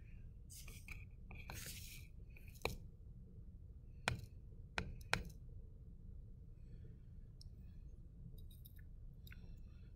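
Metal scoopula scraping and clicking against containers while scooping small crystals of copper(II) sulfate pentahydrate, with a few sharp clicks in the middle, then a light crackle of crystals tipped into an aluminium weighing dish near the end.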